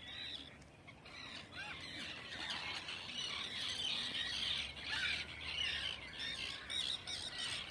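A flock of birds calling at once: a dense, continuous chatter of many overlapping short squawks.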